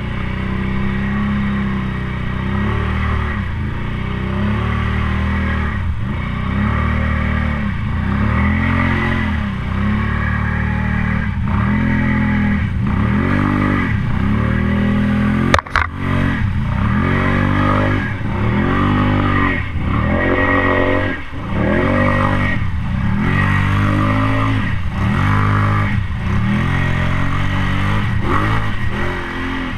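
Can-Am Outlander ATV's V-twin engine revving up and down over and over, about once a second, as the quad pushes through flood water. A single sharp knock a little past halfway.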